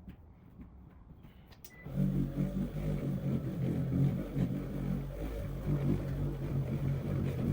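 Cordless car polisher, powered by a DeWalt battery, buffing car paint. It is quiet for about two seconds, then the motor comes on and hums steadily, its pitch wavering slightly under load.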